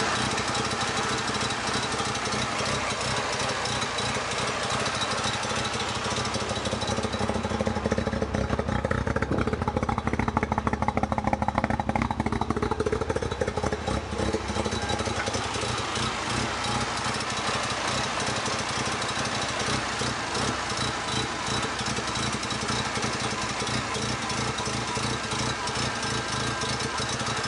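Mazda RX-7 rotary engine idling roughly, with an uneven, pulsing beat. It swells somewhat louder and deeper for several seconds in the middle, then settles back to the rough idle.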